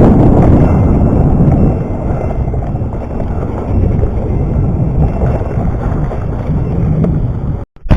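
Wind buffeting the microphone of a camera carried on a trail ride, with a low, rough rumble from riding over the trail. Loudest in the first two seconds, then easing, and it cuts off abruptly near the end.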